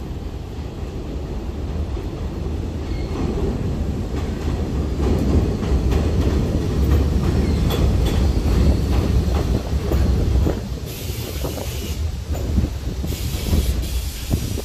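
R68A subway train approaching and running past on an elevated steel track, rumbling, with rapid clicks of the wheels over the rail joints. The sound grows to its loudest about halfway through. Near the end come two spells of hissing.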